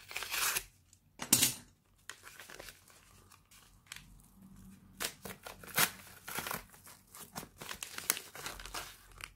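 Paper mailing envelope being crumpled and torn open by gloved hands: irregular crinkling and ripping of paper, with the sharpest rips about a second in and again near six seconds.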